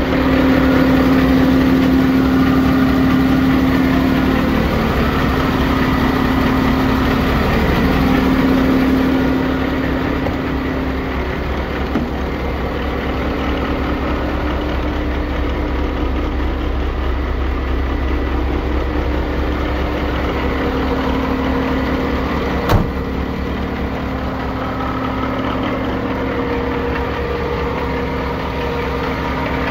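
Renault Premium 320 dCi truck's diesel engine idling steadily, louder for the first third. A single sharp click about three quarters of the way through.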